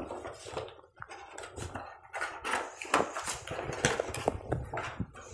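A small cardboard box being handled and opened by hand: irregular taps, knocks, scrapes and rustles of cardboard.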